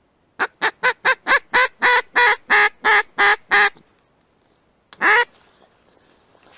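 Mallard hen duck call blown by a hunter to lure drakes: a loud run of about a dozen quacks that slow down and lengthen as they go, then one more quack about a second later.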